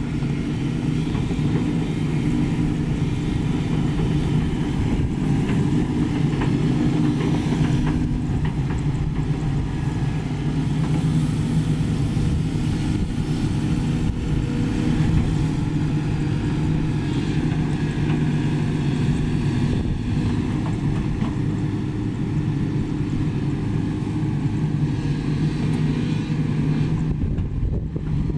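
Sany SY215C crawler excavator's diesel engine running steadily at working speed.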